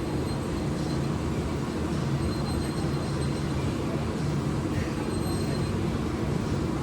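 Steady low background rumble with no speech, the hum of gym ventilation or machinery.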